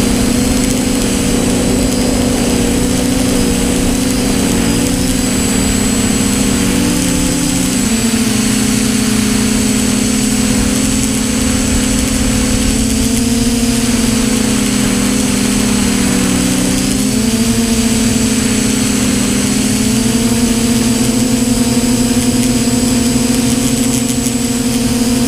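Multirotor drone's electric motors and propellers humming steadily, the pitch wavering and dipping twice as the motors change speed, over a rush of air noise.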